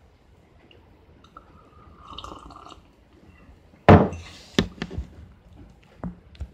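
A sip from a ceramic mug, then the mug set down with a sharp clunk just before four seconds in, followed by a few lighter knocks.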